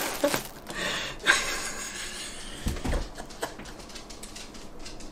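Packaging being handled inside a cardboard box: rustling and scraping of plastic wrap and bubble wrap against cardboard, with a sharp knock about a second in and a dull thump about three seconds in.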